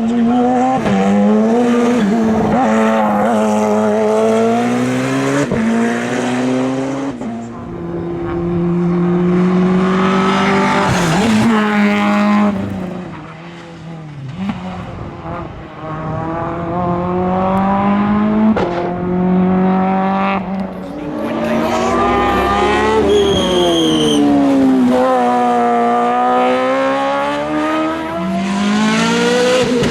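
Hillclimb race cars running hard through the bends, one after another, their engines revving up through the gears and dropping back on each shift and lift-off, with brief tyre squeal.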